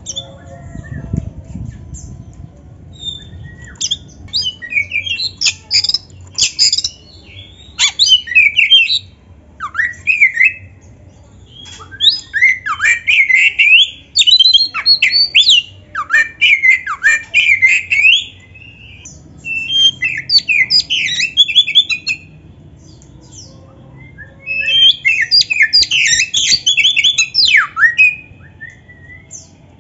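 Black-bellied Oriental magpie-robin (kacer) singing loud, varied phrases of whistles and rapid chattering notes, in bursts of a few seconds with short pauses between them, some phrases ending in steep falling whistles.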